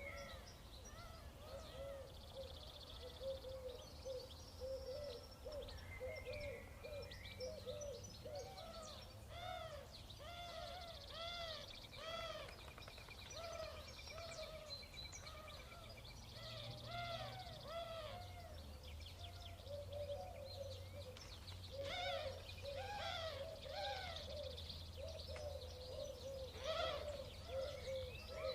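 Birds calling in a dense chorus of short, quickly repeated arched notes that overlap, over a steady low hum.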